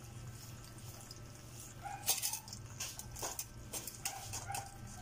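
Metal tongs and live crabs' shells clicking, knocking and scraping against a metal cooking pot in a run of irregular clicks starting about two seconds in, over a low steady hum.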